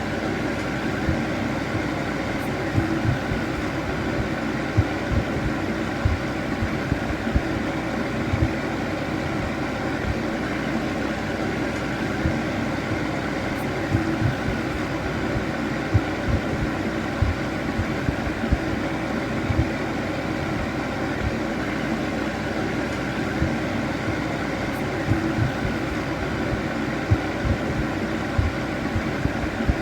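Electric fan heater running steadily: a constant whirring hum made of several held tones over an even rush of air, with irregular low thuds scattered through it.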